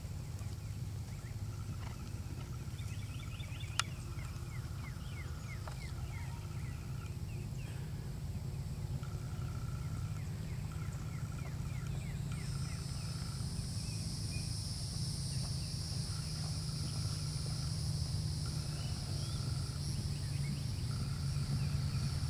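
Open-air ambience: a steady low rumble of wind on the microphone with birds chirping. From about halfway a steady high insect drone joins in.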